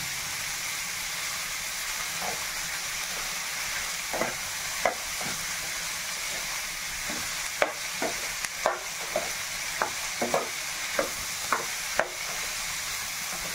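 Sliced onions, green chillies and curry leaves sizzling steadily in hot oil in a metal pan. From about four seconds in, a metal spatula scrapes and knocks against the pan as the mixture is stirred, most often in the second half.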